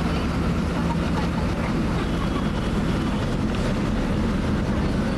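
The inside of a city bus on the move: its engine runs at a steady drone over a constant road rumble.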